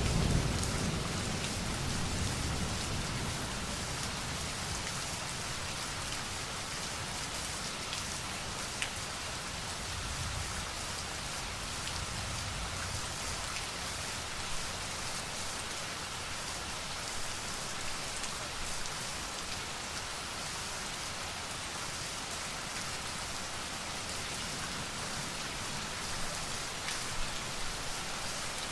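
Steady rain falling and pattering on hard surfaces, an even hiss. A low rumble of thunder dies away over the first few seconds.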